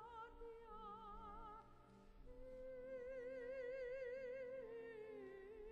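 Sacred music: a single voice singing long, held notes with a wide vibrato, over a steady, sustained low accompaniment.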